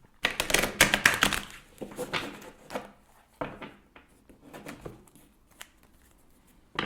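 Tarot cards being shuffled by hand: a rapid run of papery card flicks for about two and a half seconds, then a few scattered taps and flicks.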